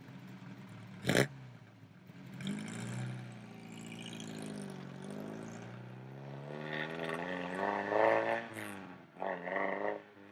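Alfa Romeo 1900 C Super Sprint Zagato's twin-cam four-cylinder engine being driven hard: a short sharp burst about a second in, then the engine note rises and falls. It climbs steadily to its loudest, drops abruptly about eight seconds in, and climbs again near the end.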